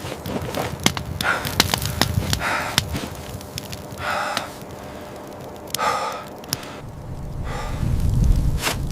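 Heavy breaths or snorts, one about every one and a half to two seconds, with light clicks between them and a low rumble that swells near the end.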